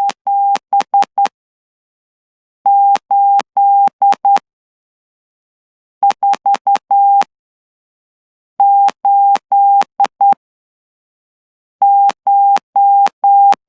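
Morse code sent by hand on a straight key at about 12 words per minute, heard as a steady single-pitch beep keyed into dots and dashes. There are five groups of characters with short pauses between them, and a click at the start and end of the elements.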